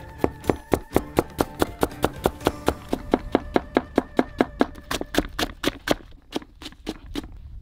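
Knife chopping spring onions on a plastic cutting board: quick, even knocks of the blade on the board, about four a second, fading out near the end.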